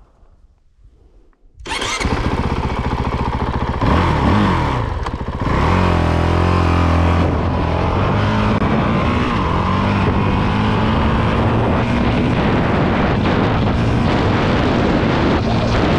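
Honda CRF450RL dual-sport motorcycle's single-cylinder four-stroke engine running under way. It comes in loudly and suddenly under two seconds in, the revs climb around four seconds in, then it holds a steady cruising note.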